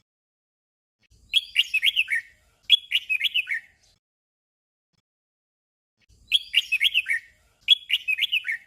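Red-whiskered bulbul singing a short, chirpy phrase twice in quick succession, then the same doubled phrase again a few seconds later.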